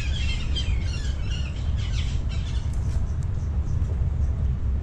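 Red-breasted parakeets (betet Jawa) giving quick, harsh chattering calls for the first two seconds or so, fading after that, over a steady low rumble.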